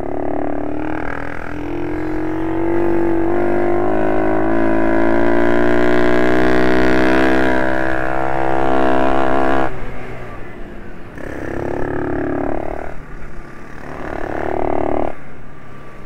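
Minibike engine pulling hard, its pitch climbing steadily for about ten seconds before the throttle shuts off suddenly, then two shorter bursts of acceleration near the end. Heard onboard from the rider's camera.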